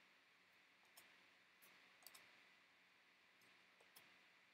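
Near silence broken by about half a dozen faint, sharp clicks of baseball trading cards being handled and shuffled through.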